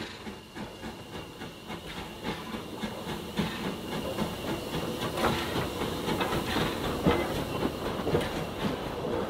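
Steam tank locomotive No. 24 Calbourne, an LSWR O2 class 0-4-4T, rolling slowly past on the approach to a station. Its wheels and running gear clank and click irregularly over the rail joints, and the sound grows louder as the engine draws near.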